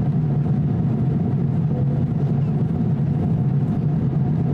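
Steady low drone of engine and airflow noise inside the cabin of an Airbus A350-900 in flight, with a faint steady higher tone above it.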